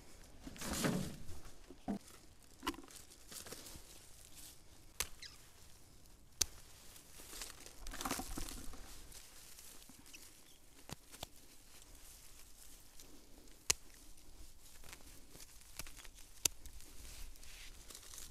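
Pruning shears snipping back juniper branches: single sharp snips every few seconds, with bursts of rustling as the springy evergreen foliage is pushed aside and pulled out.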